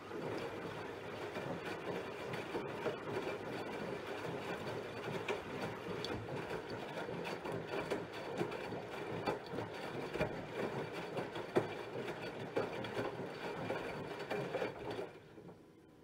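Bosch Serie 4 VarioPerfect washing machine's drum turning during the rinse cycle, wet laundry tumbling and clattering inside it over the quiet EcoSilence Drive motor. The drum stops suddenly about 15 seconds in.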